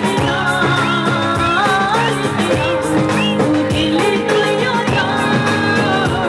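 Pop music: a woman singing long held notes that slide between pitches, over a band with a steady beat.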